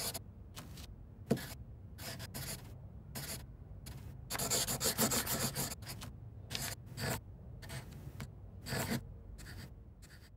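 Felt-tip marker writing on paper: a run of short scratchy pen strokes, with one sharper tap just over a second in and a longer stretch of quick scribbling about four to six seconds in.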